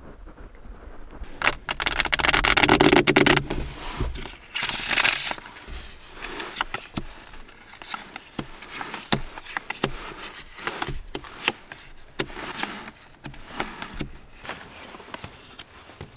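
Brand-new plastic-coated playing cards being handled at a table: a dense rustling burst of shuffling a couple of seconds in, a shorter hissing riffle a little later, then cards snapped off the deck and laid down one at a time in light, irregular clicks and taps.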